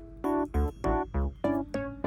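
Background music: a bouncy electric-piano tune with a steady beat.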